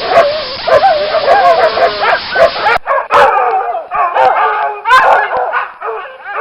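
A pack of dogs barking together: many loud, overlapping barks and yips. About three seconds in, the sound cuts abruptly to a different recording of another group of dogs barking.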